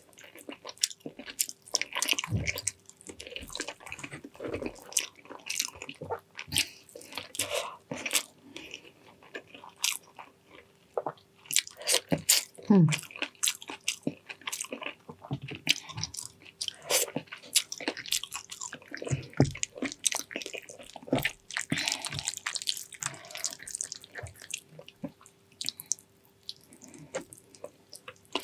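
Close-miked eating of tender braised pig's trotters: irregular biting and chewing, a run of short clicks and smacks with uneven gaps.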